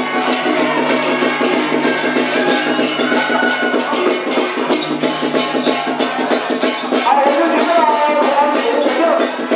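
Traditional temple-ceremony music with fast, dense percussion strokes. A pitched melody line comes forward about seven seconds in.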